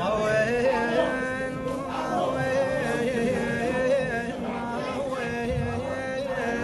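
A man sings an Arabic elegy in the style of an Iraqi Shia mulla's lament. He holds long, wavering, ornamented notes with no clear beat.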